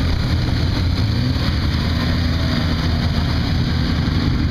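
Vehicle engine idling steadily, a low, even rumble with a faint steady hum that comes in about a second and a half in.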